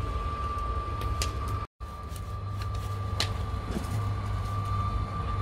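A machine running steadily: a low rumble with a constant high whine over it, and a few light knocks. The sound drops out completely for an instant just under two seconds in.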